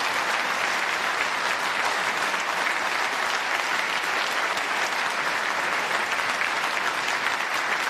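Sustained applause from a large audience, many hands clapping at a steady level.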